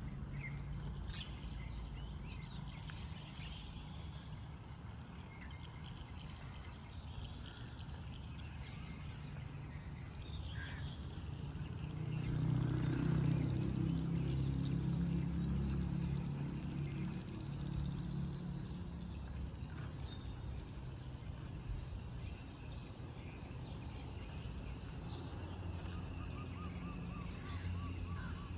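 Outdoor ambience of scattered bird chirps and calls over a steady low rumble. The rumble swells louder for several seconds about halfway through, and a short bird trill comes near the end.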